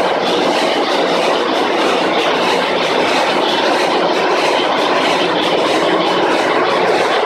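Ship's engine-room diesel machinery running: a loud, steady mechanical din with a faint low hum under it and no let-up.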